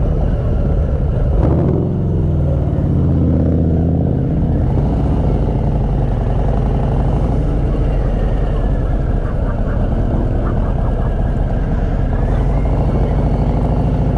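Motorcycle engine running steadily while riding at road speed, a loud, low engine note with road noise.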